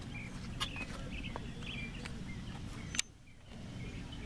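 Outdoor ambience with birds chirping over a low steady rumble, and a few handling clicks, the loudest about three seconds in, followed by a brief drop in level.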